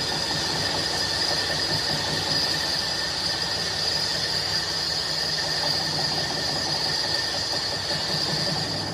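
Workshop machine running steadily, with a high-pitched whine over a low hum; it winds down near the end.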